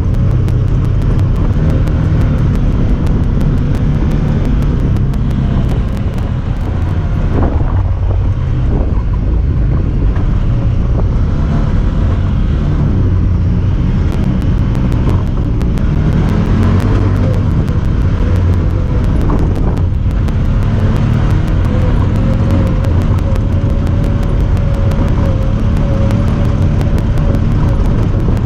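Honda Talon 1000R side-by-side's engine running steadily while driving, with wind on the microphone. A rapid, regular high ticking runs through it, a noise made by the camera itself.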